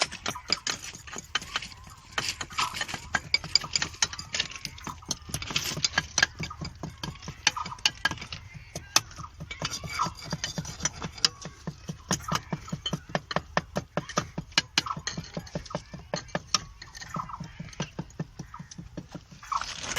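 Rapid, irregular mechanical clicking, several sharp clicks a second, with faint voices underneath.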